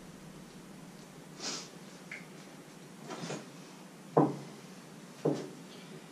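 A couple of soft sniffs, then two sharp knocks about a second apart, each with a short ring.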